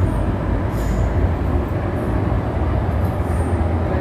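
Cabin noise inside an MTR M-train carriage running on the line: a steady low rumble with wheel and track noise.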